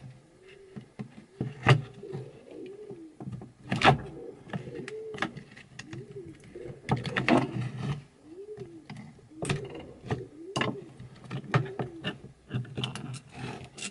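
Clicks and knocks of electric-drill parts: plastic housing, gears and gearbox being handled and pulled apart. Behind them, a faint low call rises and falls, repeated about once a second.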